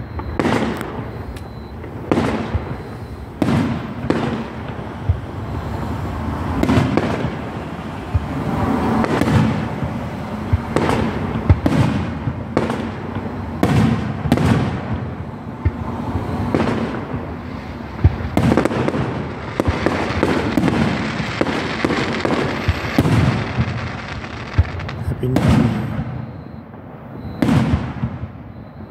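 Aerial firework shells bursting in a steady run of sharp bangs, about one a second, each trailing off in an echo.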